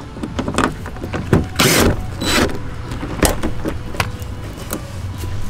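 Irregular clicks and knocks of tools working loose the screws and clips of a Toyota FJ Cruiser's front fender, with two short scraping noises near the middle.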